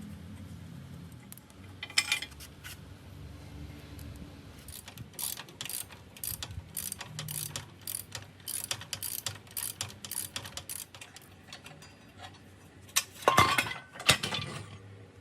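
Hand tools working on metal motorbike parts: a run of sharp metallic clicks, a few a second, in the middle, with a louder clatter of metal near the end.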